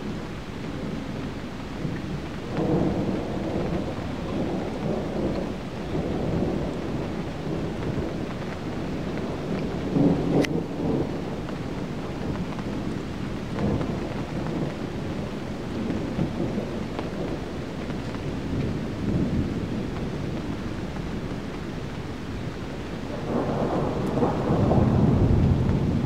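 Thunder rumbling through a thunderstorm over steady rain, swelling a few times and loudest near the end.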